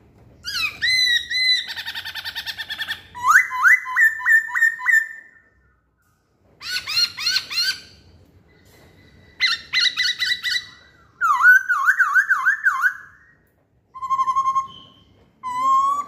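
Poksay Hongkong laughingthrush singing loud, varied whistled phrases in bursts of a second or two. The phrases are made of quickly repeated rising notes, with a buzzy trill early on, and short pauses between them.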